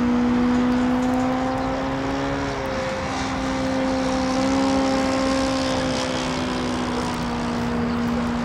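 Home-built radio-controlled model airplane in flight, its motor and propeller giving a steady drone that wavers slightly in pitch, with a brief dip about three seconds in.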